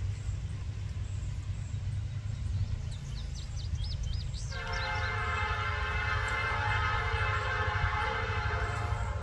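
Nathan P5 five-chime horn on an EMD GP30 sounding one long blast from about halfway in, cutting off just before the end, over the low rumble of the train's EMD diesel locomotives.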